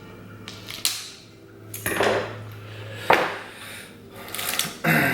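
Handling noises from working tubeless rim tape onto a bicycle wheel rim: a few short knocks and scrapes, the sharpest about three seconds in and a cluster near the end.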